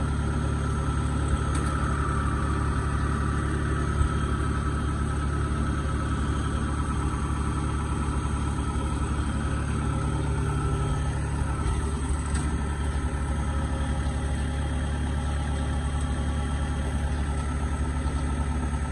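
Kubota DC70 Plus combine harvester's diesel engine running steadily at idle, an even low hum with no change in speed.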